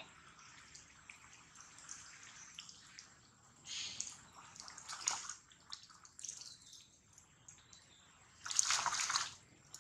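Shallow muddy water splashing and sloshing as monkeys wade and move about in it, in irregular bursts, with the biggest splash near the end.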